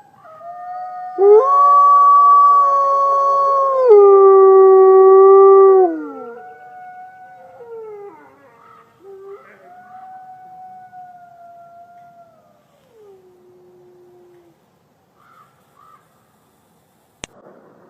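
Wolves howling, two voices overlapping in long held notes with a drop in pitch at about four seconds in, loud for the first six seconds. Fainter, wavering howls follow, the last one sliding down in pitch before it fades out.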